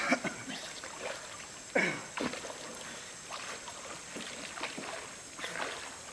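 River water splashing and sloshing as men work a fishing net from a wooden boat and in the water. There is a sharp splash right at the start and two more about two seconds in, over a steady hiss.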